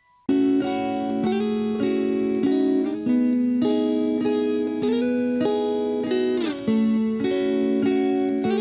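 Guitar music: plucked, lightly distorted electric guitar notes, starting suddenly about a third of a second in.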